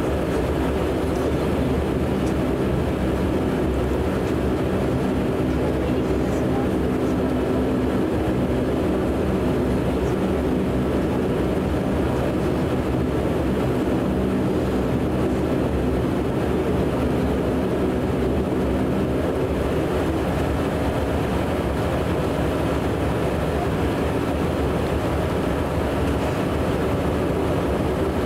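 Steady drone of a De Havilland Canada Dash 8 Q400's turboprop engines and propellers at taxi power, heard inside the cabin beside the propeller: a hum of several steady tones over a rushing noise.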